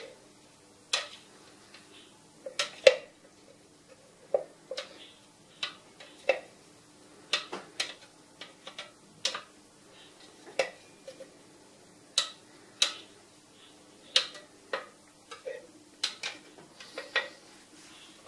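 A spatula knocking and scraping against a plastic blender jar and the rim of a bowl while leftover puree is scraped out: a string of irregular short taps, about one or two a second.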